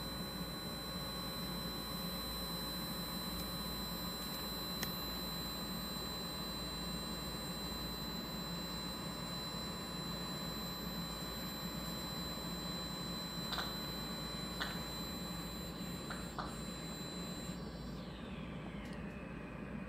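Improvised experimental electronic sound: several steady electronic tones held together, the strongest a high sine-like tone over a low hum, with a few sharp clicks in the second half. Near the end the high tone glides down in pitch.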